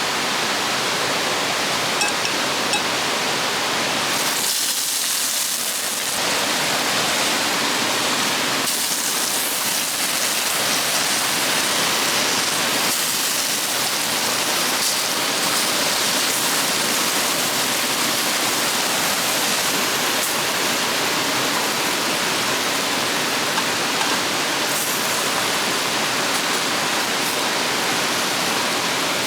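Tropical river water rushing steadily over rocks and rapids, a dense even hiss that thins out briefly about five seconds in.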